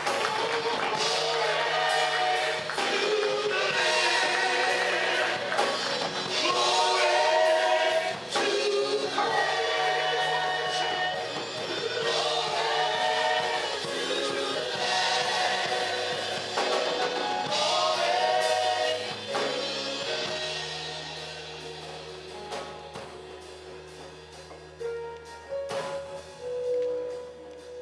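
Gospel choir singing with band accompaniment and a steady beat. The singing dies away after about twenty seconds, leaving the instruments playing softly.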